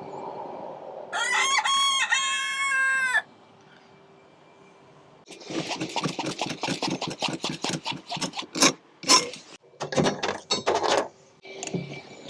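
A rooster crowing, starting about a second in and lasting about two seconds. Then, after a pause, a long run of rapid clicks and knocks.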